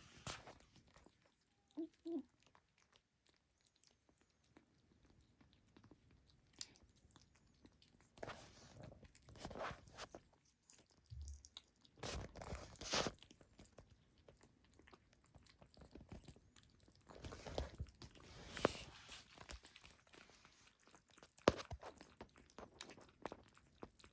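Faint, intermittent crunching and scratching from a small kitten, in scattered bursts with a few sharp clicks.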